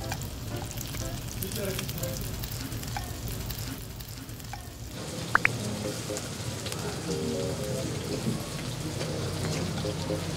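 Beef intestines and mixed offal sizzling on a hot grill pan, a steady frying hiss. A brief sharp clink sounds about five seconds in.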